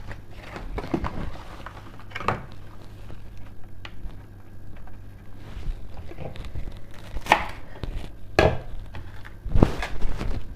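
Kitchen knife slicing through a bunch of fresh cilantro: irregular taps of the blade, with a few sharper, louder strikes spaced a second or more apart.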